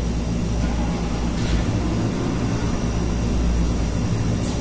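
Room air conditioner running with a steady low hum. Two faint, brief hissing swishes come about a second and a half in and near the end.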